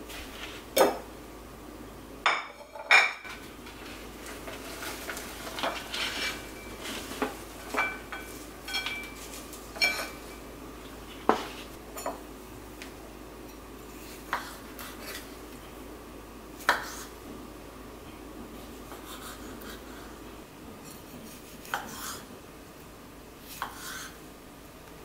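Irregular knife taps on a wooden cutting board as Campari tomatoes are sliced, mixed with light clinks of dishes and utensils.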